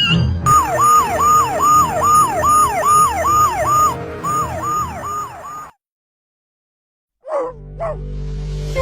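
A siren-like sound effect: a falling electronic tone repeating about twice a second, which cuts off suddenly about six seconds in. After a moment of silence come a couple of short falling sounds.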